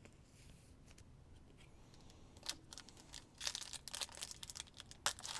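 Foil trading-card pack wrapper being torn open and crinkled, a faint crackling that starts about three seconds in after a near-quiet stretch.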